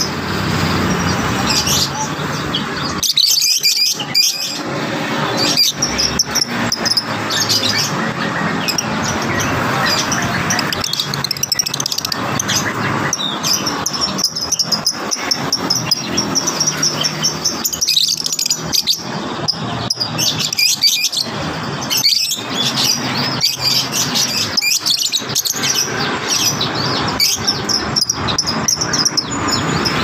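Lovebirds chirping in a cage, a dense stream of short, high chirps over a steady background din.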